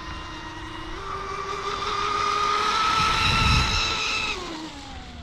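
Motor of a Mini Xcat radio-controlled catamaran whining at speed. Its pitch steps up about a second in, it grows louder as the boat passes close, then the pitch drops and it fades near the end.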